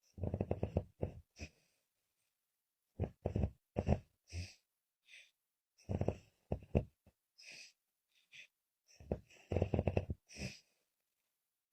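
A woman snoring on both the in-breath and the out-breath, the breathing laboured. Four rattling snores come about every three seconds, each a low fluttering buzz with a breathy hiss.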